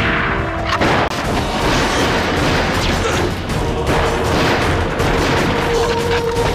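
Film gunfight: rapid, irregular gunshots from rifles and pistols, over a music score with a sustained note coming in about halfway.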